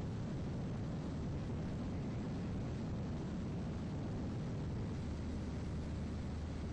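Steady drone of an aircraft's engine and airflow, heard from on board, with a constant low hum.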